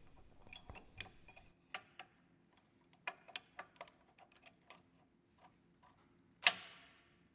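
Machined metal parts of a pistol grip wrench clicking and clinking as they are handled and fitted together in a dry assembly, with light, irregular clicks and one louder clink with a short ring near the end.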